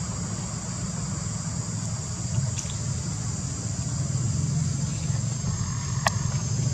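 Steady outdoor background: a low rumble with an even high-pitched drone above it, broken by two brief sharp chirps or clicks, one about two and a half seconds in and one near the end.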